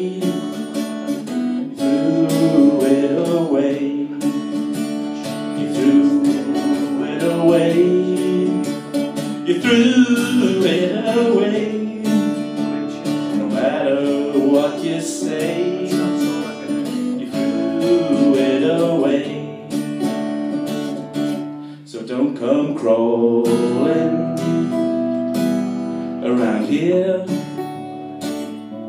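Acoustic guitar played live, strummed chords with a melodic line moving over them, in an instrumental break of a song. The playing eases briefly a little over twenty seconds in.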